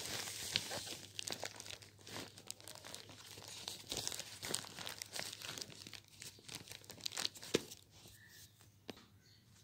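Plastic courier mailer crinkling and crackling as it is torn open by hand and a box is pulled out of it, with one sharp crackle standing out about seven and a half seconds in. The handling dies down near the end.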